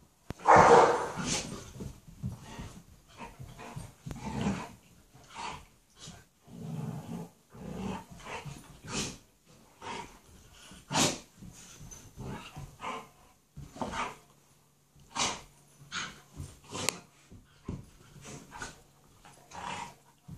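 Dogs play-fighting, growling and giving short barks in irregular bursts, the loudest about half a second in.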